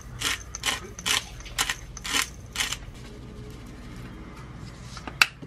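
Handheld pepper grinder twisted over a plate, a series of short rasping grinds about two a second that stop about two and a half seconds in. A single sharp click near the end.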